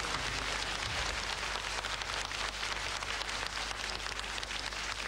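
Audience applauding: a dense, even crackle of clapping that eases slowly.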